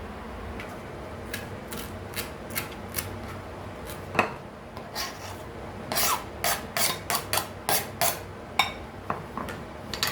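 A run of short scraping strokes, about two a second, coming quicker and louder in the second half, with one sharper stroke about four seconds in.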